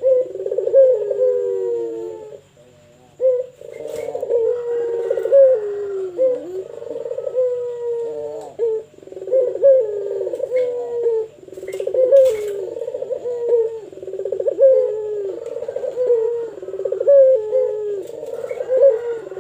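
Puter pelung dove (a collared dove) cooing hard and continuously, its deep falling coo phrase repeated about once a second, with a short break near the start. Two sharp clicks stand out, about four seconds in and again near twelve seconds.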